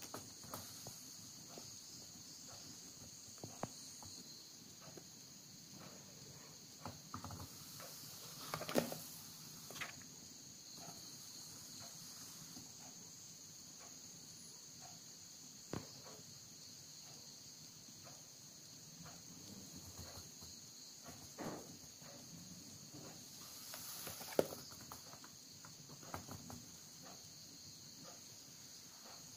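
Paper pages of a book being handled and turned: scattered soft rustles and light knocks, the strongest about nine seconds in and again near twenty-four seconds. Under them runs a faint, steady, high-pitched chirring.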